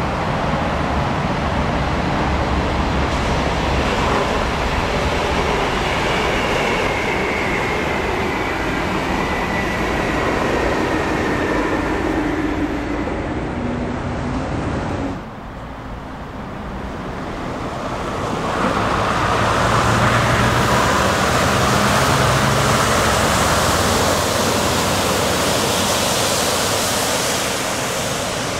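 Heavy dump trucks driving past, with engine rumble and tyre noise mixed into steady traffic noise. The sound drops off suddenly about fifteen seconds in, then builds again to its loudest as another truck approaches.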